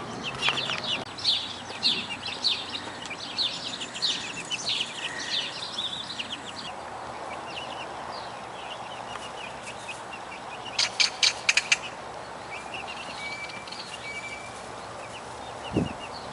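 Young Rhode Island Red chicks peeping: a flurry of quick, high, falling chirps over the first six seconds, thinning out after that. A quick run of four or five sharp clicks comes about eleven seconds in.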